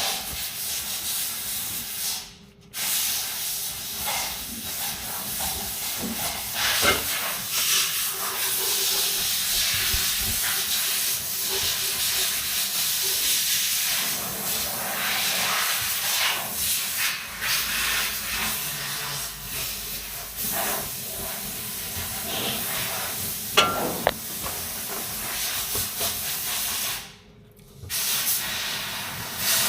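A steady, loud hiss with scattered clicks, breaking off briefly twice.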